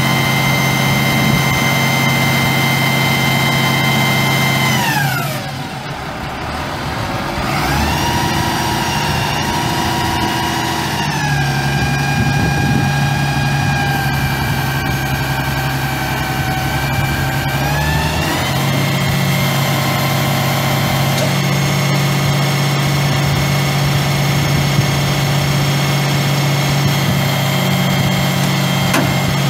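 Ford 7.8-litre inline-six diesel engine of a 1990 Ford F800 truck running, with a steady whine over it. Its speed drops about five seconds in, picks up again, eases down, then rises near the middle and holds steady.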